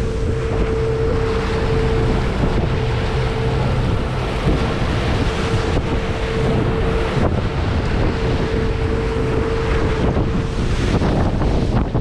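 Wind buffeting the microphone over the rush of wake and spray as a Stabicraft 2050 aluminium boat runs through choppy water. Underneath is the steady drone of its Honda 150 four-stroke outboard, with a held tone that drops out briefly a few times.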